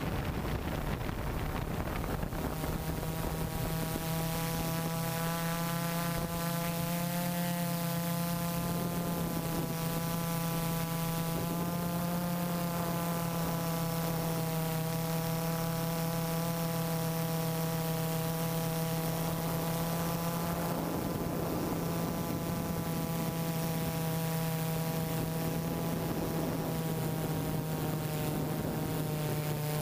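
Y6 multirotor drone's motors and propellers humming steadily, with a pitch that drifts slightly up and down as it flies.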